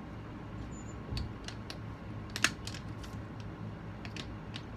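Light clicks and taps of plastic makeup compacts and brushes being handled, with one sharper click about halfway through.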